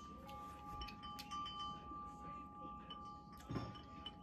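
Faint chime-like ringing: two steady high tones held on together, a second one joining just after the start, with a few small clicks over them.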